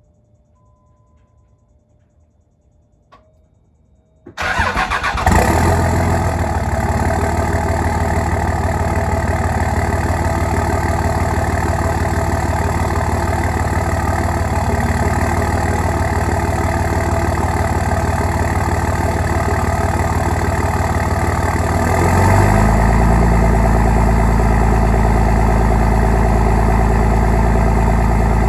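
5.9-litre HO common-rail Cummins inline-six diesel cold-starting at about 40 degrees. After a brief tone and a click, it cranks and catches about four seconds in, then runs steadily. Around 22 seconds in, its note shifts lower and gets slightly louder.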